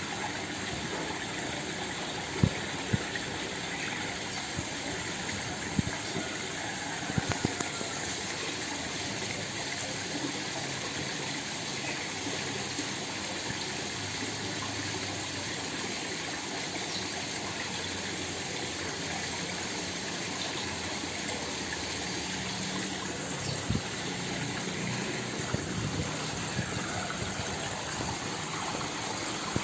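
Small waterfall: water splashing and rushing steadily, with a few brief splashes or pops standing out, about two and a half seconds in and around seven seconds in.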